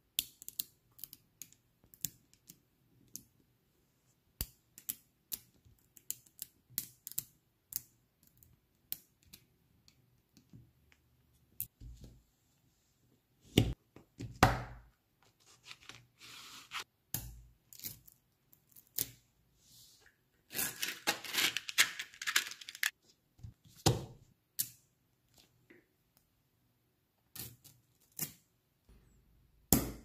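Small magnetic balls clicking and snapping together as they are set into place by hand, in scattered sharp ticks with a few louder clacks. About two-thirds of the way through comes a couple of seconds of dense rattling and scraping.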